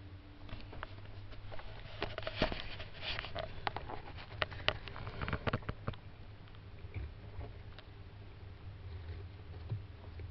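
Hermann tortoises' claws and shells scrabbling and clicking over soil, stones and wooden logs, with a dense run of sharp clicks and scratches between about two and six seconds in, over a steady low hum.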